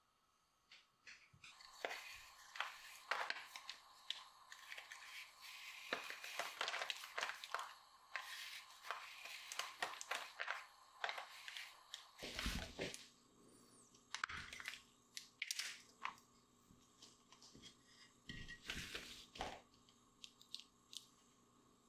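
Dried plaster being scraped and chipped with a hand tool: a close run of short crunching, scratching strokes. About halfway through it gives way to duller, spaced knocks as pieces of the plaster mould are handled on the table.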